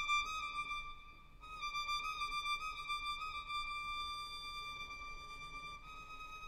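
Solo violin played softly, holding a long high bowed note with a slight waver. The note dips briefly about a second in, then resumes and steps slightly higher near the end.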